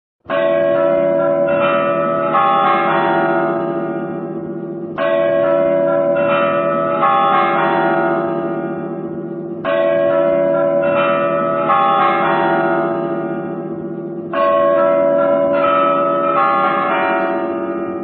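Church bells ringing in a repeating peal: a loud stroke followed by a few quicker strokes at other pitches, the pattern coming four times about every five seconds, each group ringing on and slowly fading.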